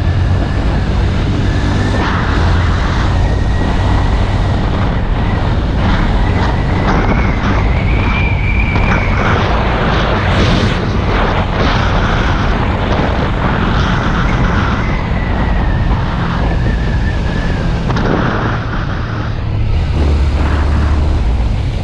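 Motorcycle riding at speed, its engine drone mixed with heavy wind rumble buffeting the microphone, and a faint tone that wavers in pitch through the middle.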